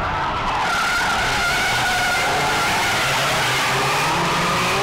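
Several drift cars sliding together through a corner: engines running at high revs with wavering pitch as the drivers work the throttle, over the steady screech of tyres skidding.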